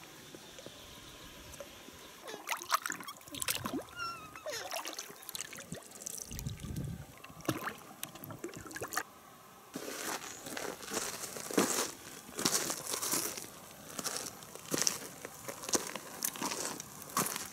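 Water sloshing and trickling with scattered knocks of gear being handled in an inflatable boat, then a dense run of clicks and rustling from about ten seconds in.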